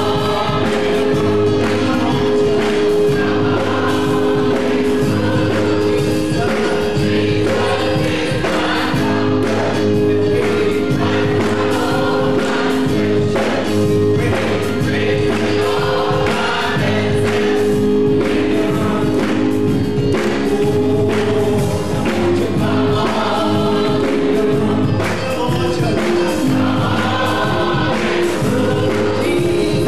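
Gospel choir singing, backed by keyboards holding sustained chords and a bass line, with drums keeping a steady beat.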